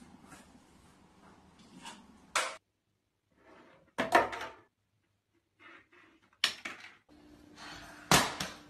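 Several separate knocks and clatters of objects hitting hard countertops as cats bat at them, a couple of seconds apart, the loudest about four seconds in and again just after eight seconds.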